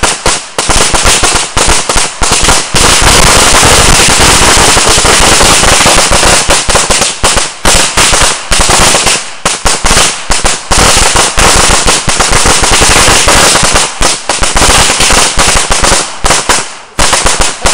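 Ground fireworks going off at close range in a rapid barrage of loud bangs. The bangs run almost unbroken from about three seconds in to about nine, then come in quick clusters with short pauses between them.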